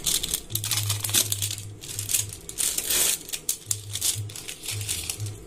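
Thin plastic wrapper crinkling in irregular crackles as it is peeled off a processed cheese slice.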